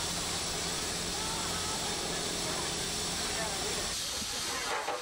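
Steady hiss of steam escaping from a worn-out 1913 Orenstein & Koppel 600 mm gauge steam locomotive, so run down that it makes only 4 bar of steam pressure.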